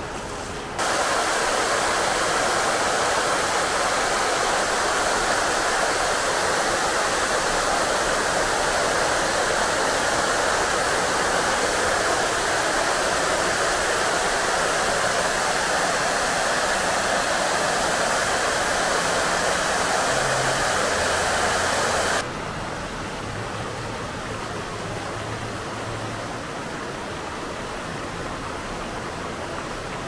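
Rushing, splashing water of an upward-flowing waterfall fountain, a steady wash of noise. It gets abruptly louder about a second in and abruptly quieter again after about twenty-two seconds.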